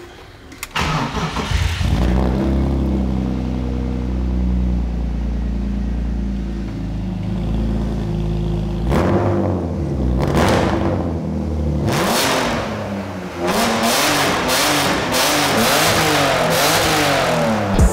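BMW E36 328i inline-six through a homemade straight-pipe exhaust, started for the first time: it cranks and catches within about the first two seconds, then idles steadily. From about halfway on it is revved several times, the pitch rising and falling with each blip.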